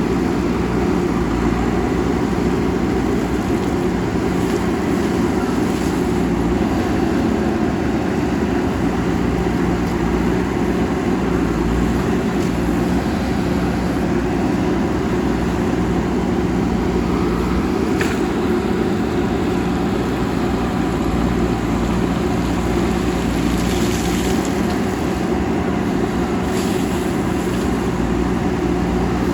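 JCB backhoe loader's diesel engine running steadily and continuously, with a few faint short high-pitched sounds in the second half.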